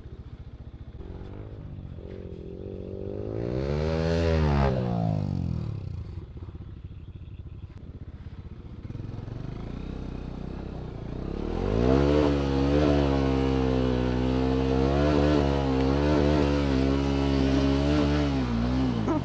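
Motorcycle engine revving as the bike works through thick mud. One rev rises and falls about four seconds in. From about twelve seconds the engine is held at high revs, its pitch wavering, until near the end.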